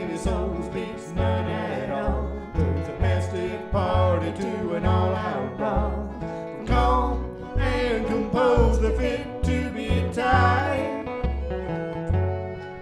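Country song playing as background music, with guitar, bass and a fiddle or sung melody over a steady beat.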